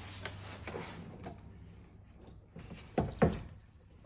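Shop rags rustling and rubbing as the fuel-pump opening in a car's floor pan is wiped down, with soft handling clicks and two dull knocks about three seconds in.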